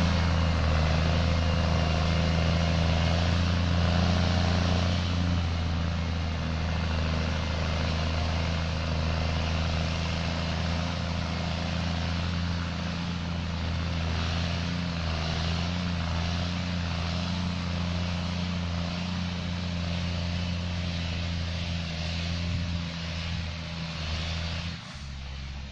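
New Holland TS6.125 tractor's four-cylinder diesel engine running steadily as it works the field, slowly fading as it moves away, then dropping off sharply near the end.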